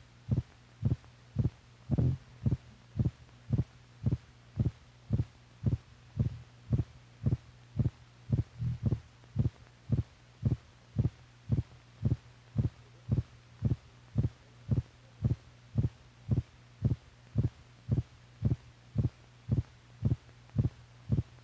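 Recorded heart sounds: a steady, regular series of short low thuds, about two a second, over a constant low hum.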